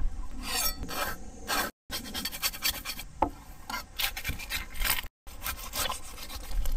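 Knife blade scraping the scales and skin of a skipjack tuna on a wooden cutting board, in many short, irregular scraping strokes. The sound cuts out abruptly twice.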